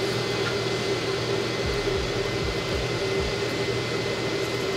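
Steady whirring hum of a fan or motor with a held tone, broken by a few soft low thumps.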